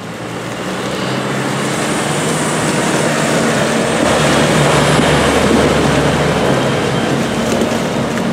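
A McCormick X8 tractor's diesel engine running steadily as it pulls a silage trailer across the field, growing louder as it drives close past, loudest around the middle, then easing off slightly.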